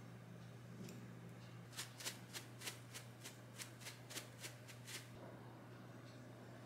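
Dried parsley being shaken out of a spice jar through a plastic shaker lid: about a dozen short, sharp rattles, roughly three a second, starting about two seconds in and stopping about a second before the end.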